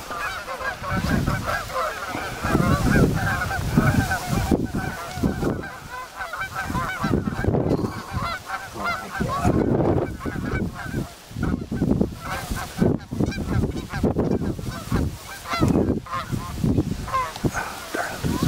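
A large flock of geese honking continuously, many calls overlapping, with gusts of wind buffeting the microphone.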